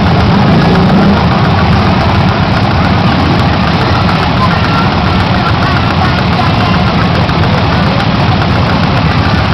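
Several motorcycle and chopper engines idling together at close range, a steady loud rumble.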